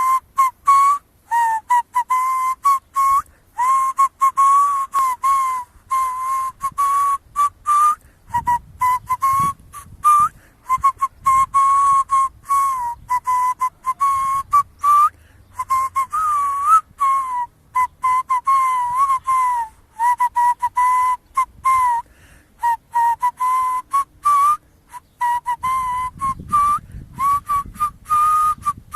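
A whistle playing a song melody note by note: a clear tone around 1 kHz broken into short notes, with small pitch bends and slides between them.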